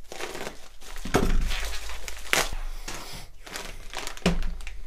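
Bubble wrap and plastic packaging crinkling and crackling as it is cut open with a utility knife and unwrapped, with several sharp cracks along the way.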